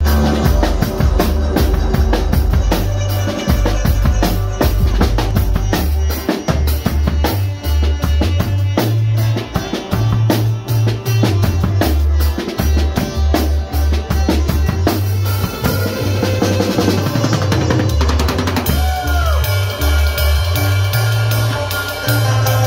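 Live band playing electronic-leaning music: a drum kit with kick and snare over deep, stepping bass notes. About three-quarters of the way through the drums drop out, leaving the bass and a sliding synth-like tone.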